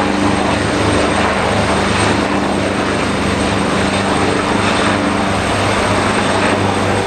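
AgustaWestland AW139 twin-turbine search-and-rescue helicopter flying close overhead: loud, steady rotor and turbine noise over a droning hum, whose higher note fades about five seconds in.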